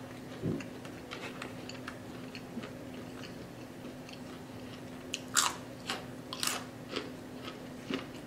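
Close-up chewing and biting of crispy fried catfish: many small crackles, with two louder crunches just past the middle.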